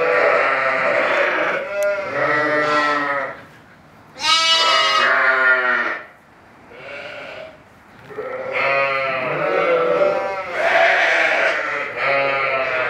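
Young lambs bleating over and over: a string of long calls a second or two each, with a higher, louder call about four seconds in.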